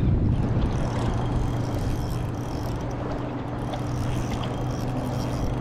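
A boat motor running steadily with a constant low hum, over a rush of wind and water.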